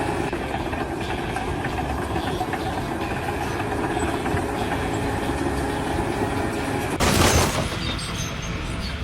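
Steady mechanical noise of running machinery, with a short loud rushing burst about seven seconds in.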